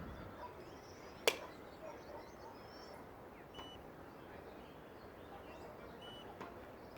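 A single sharp click about a second in, followed by two short high beeps a few seconds apart, over faint bird chirps.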